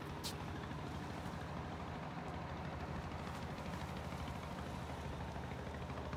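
Steady low engine hum, running evenly under a hiss of background noise.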